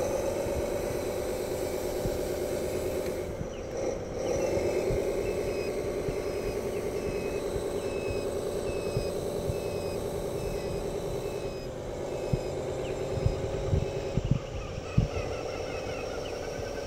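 Radio-controlled dump truck running as it drives on dirt: a steady motor sound that dips and changes pitch a few times with the throttle. A few sharp knocks come near the end.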